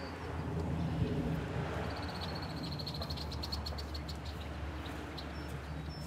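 A rapid high-pitched trill of short, evenly spaced pulses from a small calling animal, starting about two seconds in and lasting a couple of seconds, over a steady low rumble with scattered faint clicks.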